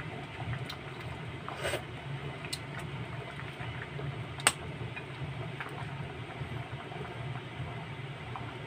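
Pot of vegetable stew simmering on a gas stove: a steady low rumble with scattered small pops, and one sharp click about four and a half seconds in.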